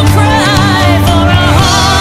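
An AOR rock ballad playing. A lead melody with wide vibrato and pitch bends sits over a full band with drums.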